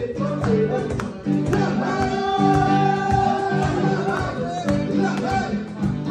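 Music with singing over a regular beat.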